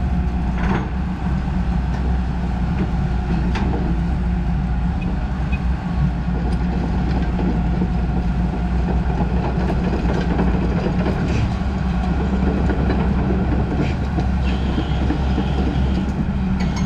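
Hyundai R210 hydraulic excavator's diesel engine running steadily at idle, with a couple of light clicks in the first few seconds.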